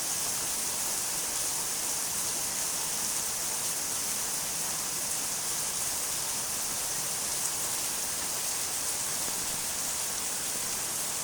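Steady rain: an even, unbroken hiss, bright and high, with no single drops or thunder standing out.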